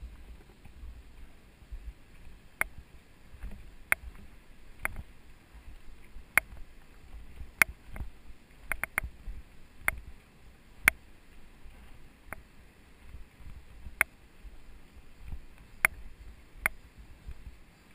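Mountain bike rolling down a rocky gravel track: a low rumble of tyres over stones, broken by irregular sharp clicks and knocks from the bike rattling over rocks, about one every second.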